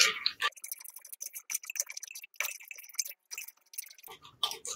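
A spoon stirring a thin mixture of vinegar and spices in a clay pot, with faint, irregular clicks and scrapes of the spoon against the pot.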